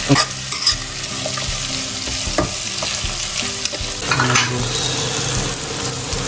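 Chopped onion, garlic, green chilli and peas sizzling in hot oil in a kadhai, stirred with a spatula that clacks against the pan a few times.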